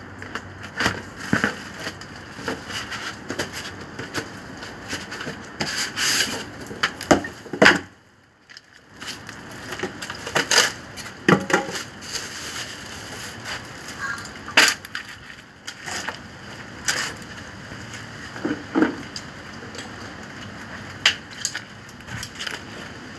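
A cardboard box and polystyrene foam packing being handled while a new peripheral water pump is unpacked: scattered rustles, scrapes, squeaks and knocks, with a brief drop almost to silence about eight seconds in.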